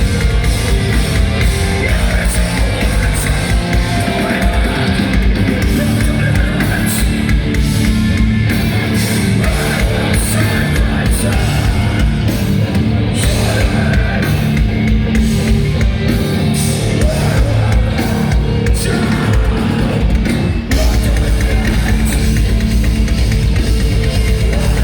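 Heavy rock band playing live and loud, with distorted electric guitars, bass and a drum kit. About 21 seconds in, the drum hits drop away into a steady held low chord.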